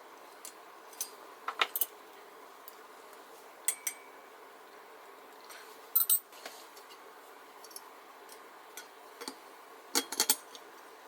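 Small metal parts and tools clinking and tapping as a Coleman 200A lantern is reassembled by hand: scattered sharp clicks a few at a time, with a quick cluster near the end.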